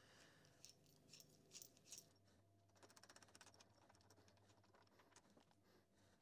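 Near silence with faint small metal clicks and light scraping: nuts being threaded finger-tight onto the vise's clamping bolts. A quick run of ticks comes about three seconds in.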